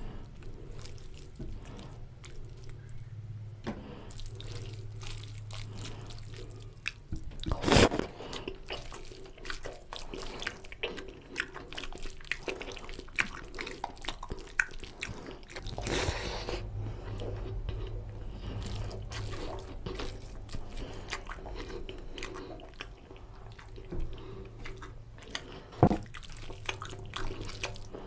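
Close-miked mukbang eating sounds: fingers squishing rice into oily mutton curry gravy, with wet chewing and lip-smacking of fatty mutton. A few louder wet smacks or slurps stand out, about eight, sixteen and twenty-six seconds in.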